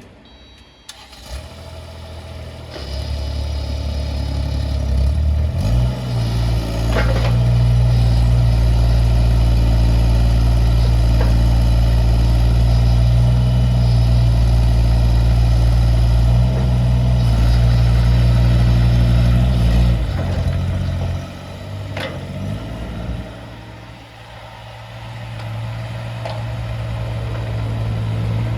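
Kubota U17-3 mini excavator's three-cylinder Kubota diesel engine starting up and running, its speed raised in steps to a steady high note. Near the end the engine drops off and then climbs again. A few sharp metallic clanks are heard along the way.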